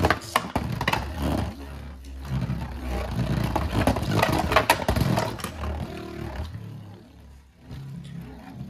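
A Right Artemis Beyblade Burst top, just launched for a test spin, spinning and travelling around a plastic Beyblade stadium. It makes a rattling scrape with a low rumble against the stadium floor, which fades about six seconds in as the top slows.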